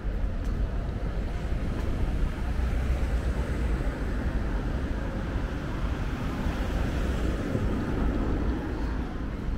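Wind buffeting the microphone over a steady outdoor rumble.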